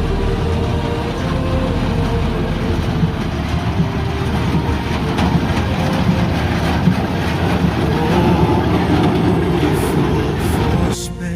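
Tractor engine running under load with a hay baler working behind it, a dense steady mechanical clatter and hum. The machine noise drops away abruptly at the very end.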